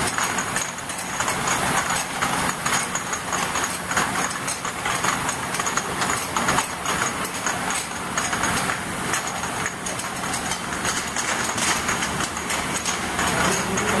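Automatic ultrasonic bottle-washing machine running: a steady machine hum under a dense, continuous clatter of small glass bottles moving through the feeder and star wheel.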